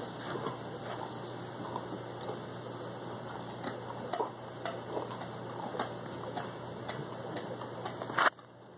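Dog gnawing a frozen beef knuckle bone: irregular small clicks and scrapes of teeth on hard bone, with one louder click near the end.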